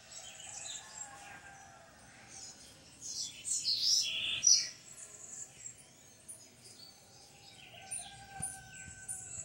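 Wild birds chirping and calling, with a cluster of rapid high chirps about three to four and a half seconds in that is the loudest part, and scattered calls before and after.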